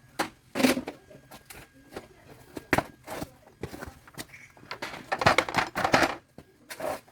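Irregular clatter of knocks and rustling, the handling of citrus fruit during sorting, with a denser burst of knocks near the end.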